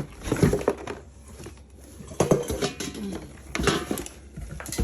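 Knocks and rustling of an electric meat grinder's parts and packaging being handled during unpacking, in three short clusters about half a second, two and a quarter and three and three quarters seconds in.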